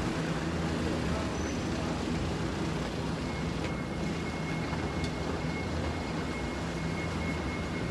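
A bus engine idling close by, a steady low hum under street noise. A thin, steady high whine joins it about three seconds in.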